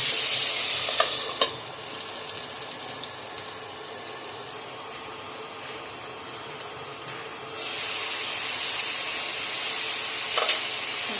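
Tomatoes and onions sizzling in hot oil in a frying pan. About a second in come two light clinks, and the sizzle drops to a lower level. It rises to full strength again about three quarters of the way through.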